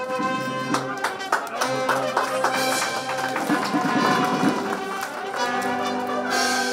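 Brass band music, starting suddenly and playing a tune of held notes.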